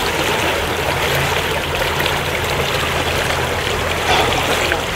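Fast-flowing stream rushing steadily, with water swirling around close by.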